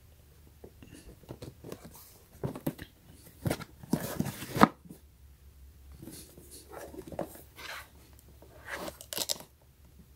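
Cardboard box being turned over and shifted in the hands: irregular rustling, scraping and light knocks of cardboard against fingers, loudest about four seconds in and again near the end.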